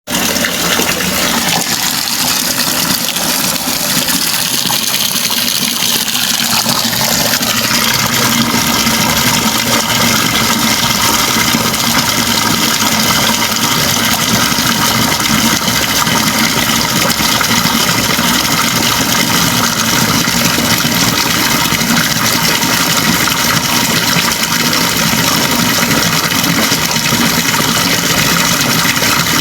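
Water running from a tap in a continuous stream. The sound changes over the first several seconds, then settles into a steady flow.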